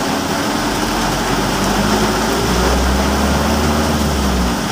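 Car driving through heavy rain: a steady hiss of rain and wet road with the engine running underneath. A deep low hum comes in about halfway through and stops just before the end.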